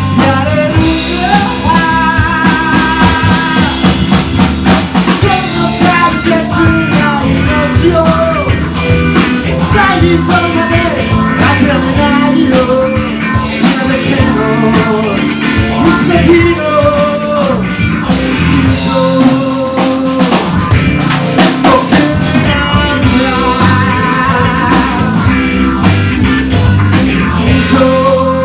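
Rock song played by a band with drum kit and guitar, and a singer's voice carrying the melody.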